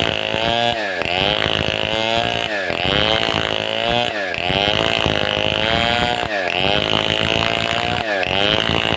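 Large two-stroke chainsaw of the Stihl 070 pattern running at high revs, its engine pitch dipping briefly and climbing back every second or two.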